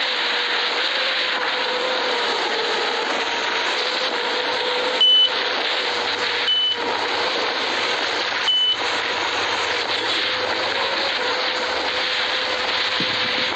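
Mini drone's motors and propellers running steadily in low flight: an even hiss with a steady hum. Three short high beeps sound in the middle, a second and a half to two seconds apart.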